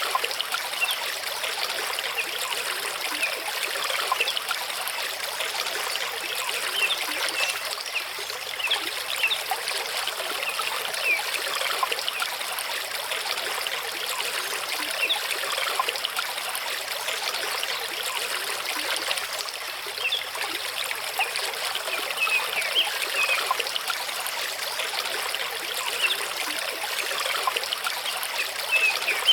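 Mountain stream running over rocks, a steady babble and trickle of water.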